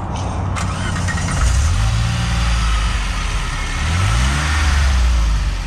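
A DeLorean DMC-12's six-cylinder engine running at a steady idle through its exhaust, blipped once in a short rev about four seconds in.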